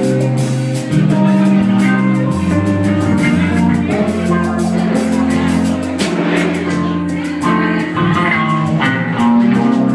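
Live band playing a song: guitar chords over a bass line and drum kit, with steady cymbal and drum hits.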